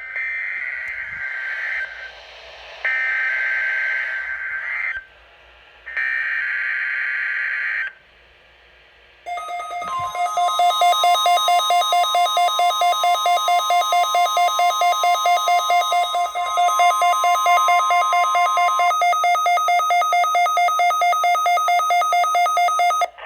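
NOAA Weather Radio Required Weekly Test: three bursts of screechy, warbling SAME digital header data, each about two seconds long with short gaps between, then after a second of quiet the weather radio receivers set off by the test, beeping rapidly at about three to four beeps a second. A steady warning alarm tone runs under the beeping for about nine seconds before stopping, while the beeping continues.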